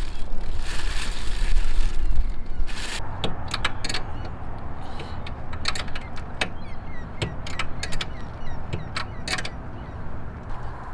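A hand ratchet fitted with a Phillips bit clicks in short, irregular runs as a screw is driven into a solar panel's mounting bracket. A low rumble fills the first two seconds.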